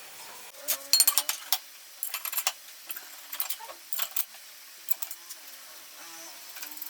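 Metal parts clinking and rattling in several short bursts of clatter, as parts are handled during workshop assembly.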